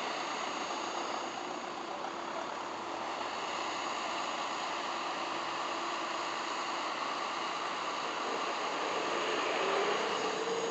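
Vehicle engines running at low speed in a steady drone, with one engine note rising slightly near the end.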